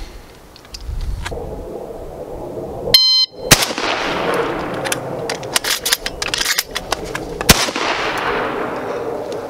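A shot timer beeps about three seconds in, and a 12-gauge shotgun fires right after. A run of quick clicks and clacks follows as shells are loaded into the gun, then a second shot about four seconds after the first, each shot trailing off in echo.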